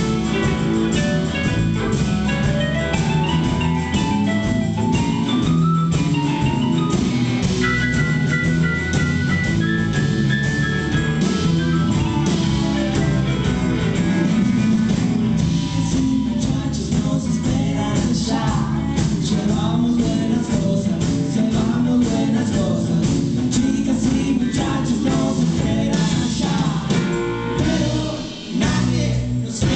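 A live band playing: a keyboard melody over electric guitar, bass and percussion, with a brief drop in loudness near the end.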